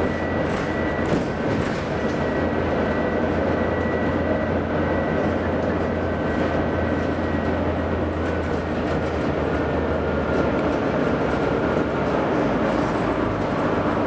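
Volvo B9TL double-decker bus's six-cylinder diesel engine running steadily at cruising speed, with tyre and road noise, heard inside the passenger saloon. The low engine drone shifts slightly in pitch near the end.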